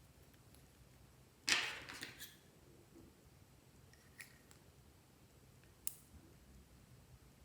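Slime being handled and stretched: a short sticky, crackling pull about a second and a half in, then single small clicks and pops near four and six seconds.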